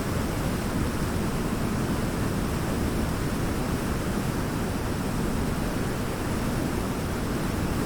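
Waterfall: a steady rush of falling water, deep and even, with no breaks or changes.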